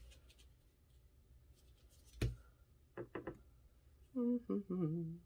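Paper-crafting handling noise at a tabletop: a single sharp knock about two seconds in and a couple of lighter taps a second later, then a short hummed vocal sound near the end.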